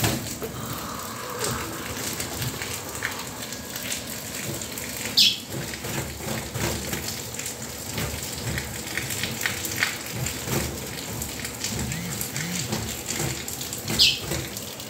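Steady rain falling on roofs and pavement, a constant hiss full of small dripping ticks. Two brief high-pitched chirps stand out, about five seconds in and again near the end.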